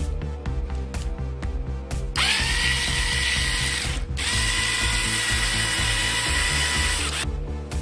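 Small DC motor and gearbox of a Jaya JUD-480 mini cordless screwdriver whirring in two runs: it spins up about two seconds in with a rising whine, stops briefly around four seconds, then runs again for about three seconds before cutting off. Background music with a steady beat plays under it.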